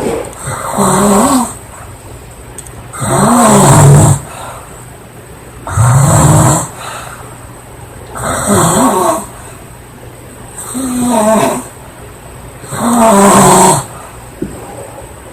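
A girl snoring loudly: six snores about two and a half seconds apart, each lasting about a second with a wavering pitch, and quieter breathing in between.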